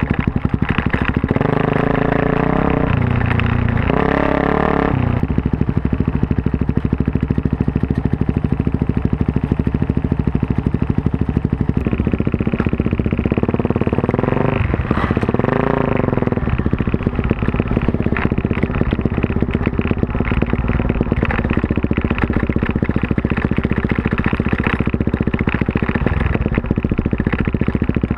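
Suzuki DR-Z400S single-cylinder four-stroke dirt bike engine, bored out to 440 with a full Yoshimura off-road exhaust, running steadily. The revs rise and fall about two seconds in and again around the middle, and hold steady otherwise.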